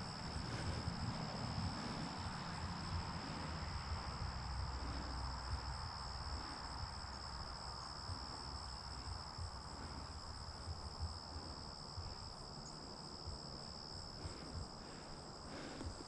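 Steady, unbroken high-pitched chirring of a cricket chorus, with a low rumble underneath that fades after about the middle.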